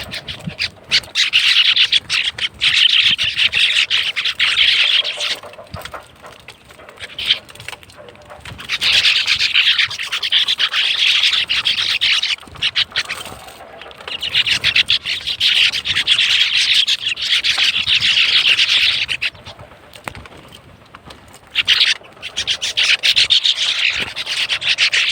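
Sparrows chirping in a dense, high-pitched chattering chorus that comes in four bouts of several seconds each, with quieter gaps between.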